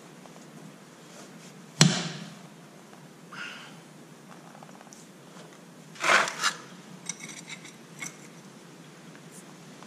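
Metal hand tools clanking on steel: one sharp clank about two seconds in, a double knock around six seconds, then a few light ringing metallic clinks.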